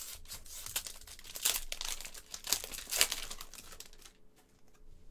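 Foil trading-card pack being opened by hand, the wrapper crinkling and crackling for about four seconds before it dies away.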